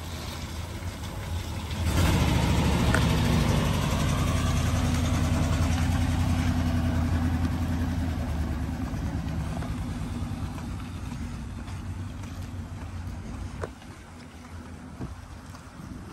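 1955 Mercury M100 pickup truck driving past close by and pulling away. Its engine sound swells about two seconds in, holds, then fades steadily as the truck moves off.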